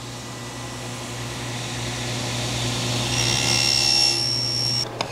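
SawStop table saw running, its low-set blade cutting a shallow stopped rebate in a pine board as the board is pushed along the fence. The cutting noise builds with a high whine over the steady motor hum, then cuts off near the end with a knock as the cut is stopped.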